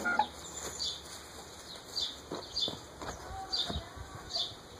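A bird calling in a series of short falling chirps, about two a second, with a short sharp sound just after the start and a few faint knocks.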